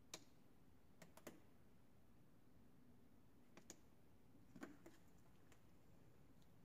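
Near silence, broken by about ten faint, sharp clicks and taps at irregular intervals, the sharpest just after the start.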